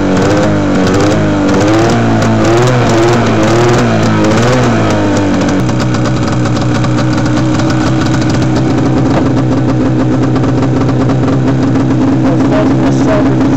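Snowmobile's two-stroke engine running on its freshly fitted carburetor needle and seat. For the first five seconds or so the revs rise and fall unevenly, then the engine holds a steady, even pitch.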